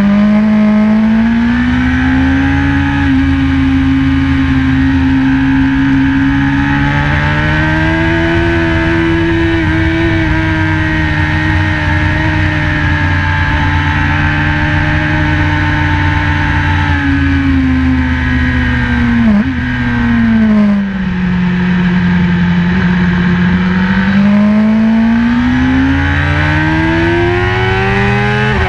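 BMW S1000RR superbike's inline-four engine pulling hard on track, heard on board. Its note holds high for most of the time, then falls for a few seconds with one short blip partway down, and climbs steadily again near the end.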